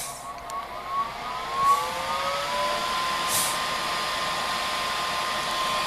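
Air Venturi RovAir compressor powering up after being switched to AC, its fan spinning up: a whine that rises in pitch over about two seconds, then settles into a steady hum with hiss. A brief hiss comes about three seconds in.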